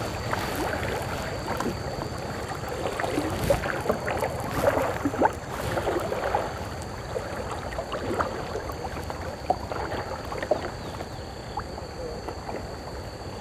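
River water splashing and gurgling around a kayak as it is paddled, with irregular short splashes from the paddle blades.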